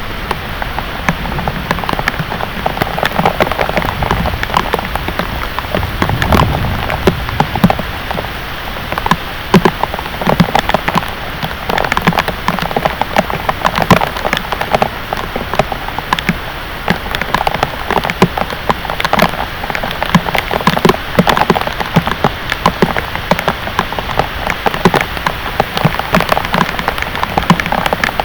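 Heavy rain falling steadily, with many sharp drops and splashes hitting a hard surface close by.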